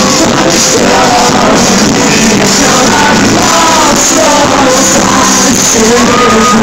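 Live pop-rock music played loudly by a band, with a sung melody over it.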